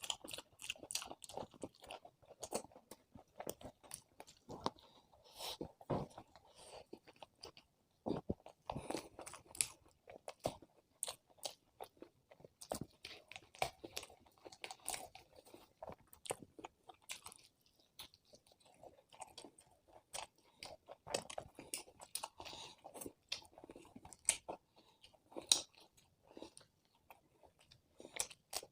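A person eating close to the microphone, chewing and biting with frequent crisp crunches, in an irregular run of small wet clicks and crackles broken by short pauses.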